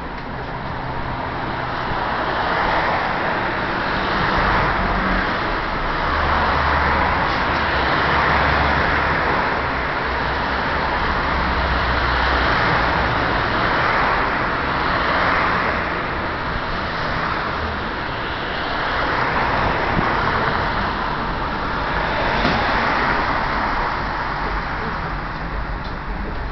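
Ride noise inside a moving trolleybus: a steady low rumble under a hiss that swells and fades every few seconds.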